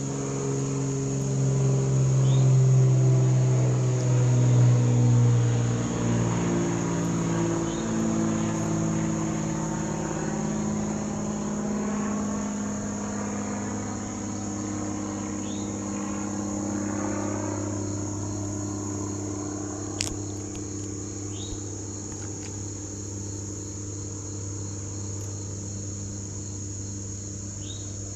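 Insects trilling steadily, high-pitched, while a motor vehicle goes by, loudest a few seconds in, its engine pitch sliding as it passes; a low engine hum carries on after it.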